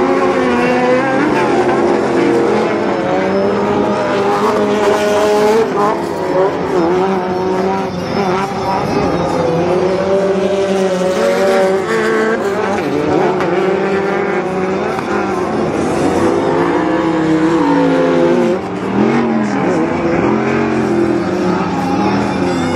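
Several short-course off-road race trucks running together around a dirt track, their engines revving up and down through the corners and gear changes, with several engine notes overlapping.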